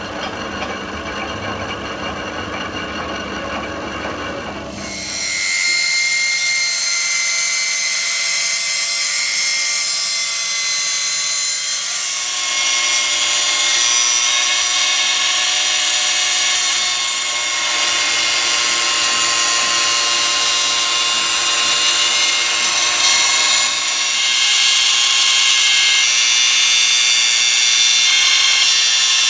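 Lathe running with a steel excavator boom pin spinning in its chuck. About five seconds in, a handheld angle grinder is put to the rotating pin, and a loud, hissing, high grinding whine takes over.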